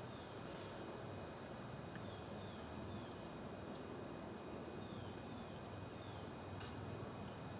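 Steady low hum of honeybees massed in a hive top feeder, with a faint high chirp about three and a half seconds in.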